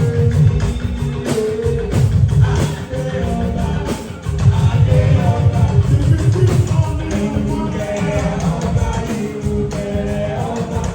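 Loud party music with singing over a heavy, steady beat.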